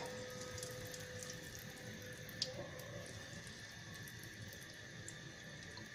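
Frozen potato croquettes deep-frying in a deep pan of hot oil: a faint, steady sizzle with small crackles, and one sharper click about two and a half seconds in.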